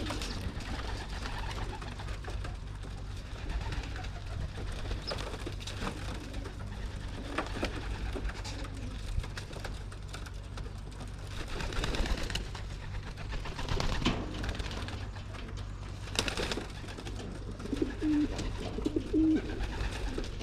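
Racing pigeons cooing in a loft, with scattered short knocks and rustles over a steady low rumble; a couple of low coos stand out near the end.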